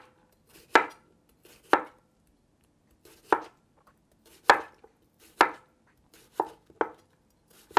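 Chef's knife slicing a peeled cucumber on a wooden cutting board: about eight separate cuts, each a sharp knock of the blade on the board, roughly one a second.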